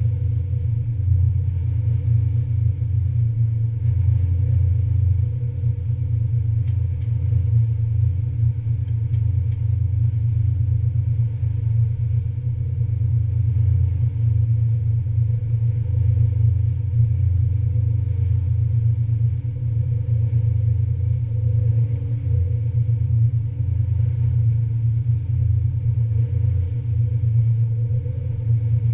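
Passenger ferry's engines running at steady cruising speed: a constant low drone with a steady hum above it.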